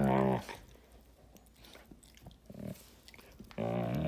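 Giant Schnauzer growling low over its bone as a hand holds the other end. It is warning off anyone who tries to take it. The growl breaks off about half a second in, a few quiet gnawing sounds follow, and a long growl starts again near the end.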